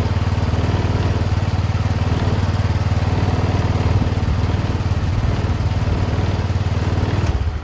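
Yamaha Mio MXi 125 fuel-injected single-cylinder scooter engine running steadily at idle, with the slow idle return the owner is trying to cure; it cuts off near the end.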